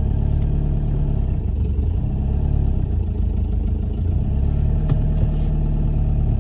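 ALH 1.9 TDI four-cylinder diesel engine running at low revs, heard from inside the car's cabin, as the car is put in gear and pulls away forward. The engine note changes about four seconds in.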